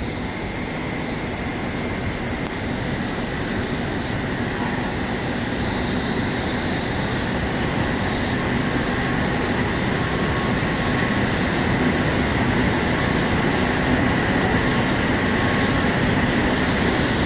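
Silicone cable production line machinery running: a steady, dense mechanical din with faint steady whines in it, gradually getting louder.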